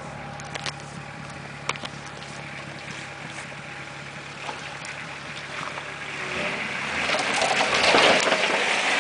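Off-road vehicle engine running steadily with a few sharp clicks, then growing louder and rougher from about six seconds in, loudest near the end.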